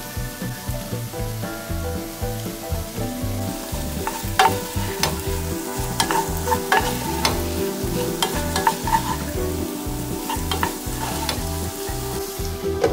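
Diced zucchini, carrot and onion sizzling in a frying pan while being stirred with a wooden spatula. From about four seconds in there are repeated sharp knocks and scrapes of the spatula against the pan.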